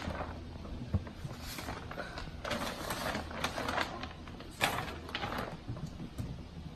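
An oversized Ruffles chip bag crinkling and rustling in several bursts as a shoebox is pulled out of it, with a few light knocks from the cardboard box.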